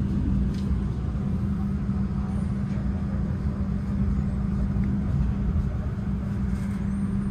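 Passenger train running, heard from inside the carriage: a steady rumble with an even low hum underneath.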